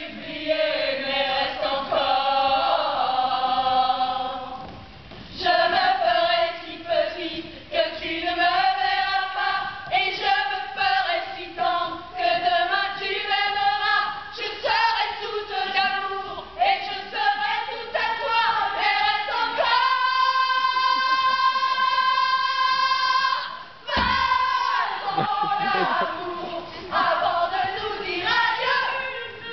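A group of women singing together, with a long held high note about two-thirds of the way through that breaks off suddenly.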